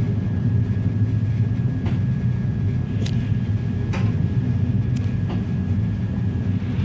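Steady low engine rumble with a faint steady whine above it and a few light clicks about once a second.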